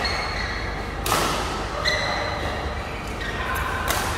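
Badminton rally in a large echoing hall: sharp racket strikes on the shuttlecock, four or so within a few seconds, mixed with short high squeaks of court shoes on the floor.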